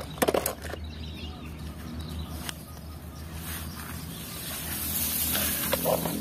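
A small plastic toy car clattering as it drops into a plastic basket of toys, a quick run of sharp clicks about half a second in, then the rustle of long grass being pushed aside, over a low steady hum.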